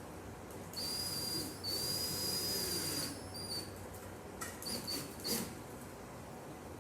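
A small power tool running with a high, steady whine and hiss for about two seconds, with one brief break, then triggered in a few short blips.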